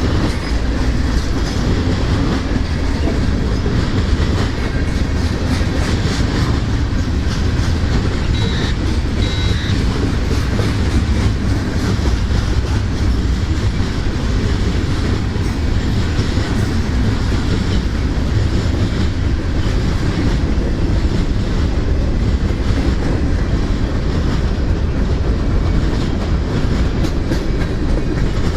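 Freight train cars rolling past on the rails, a steady heavy rumble with wheel clatter over the rail joints. A brief faint high squeal comes about eight seconds in.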